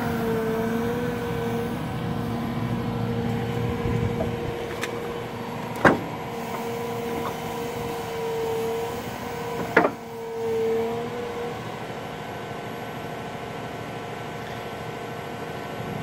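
Cat M318F wheeled excavator's diesel engine running, with a wavering hydraulic whine as the quick coupler works the attachment. Two sharp metallic clunks come about six and ten seconds in as the coupler meets and locks onto the tool. The whine stops near the twelve-second mark and the engine runs on steadily.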